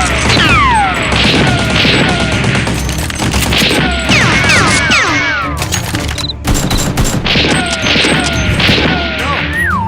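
Rapid gunfire sound effects over action music. Clusters of short falling whistles run through it, and a wailing siren starts just before the end.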